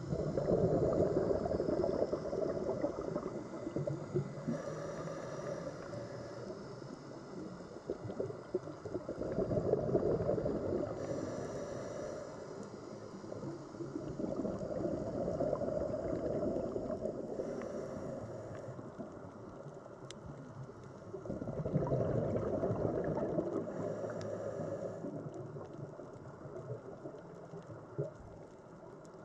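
Scuba diver's regulator breathing heard underwater: four swelling bursts of exhaled bubbles a few seconds apart, each followed by a short, higher hiss of inhalation.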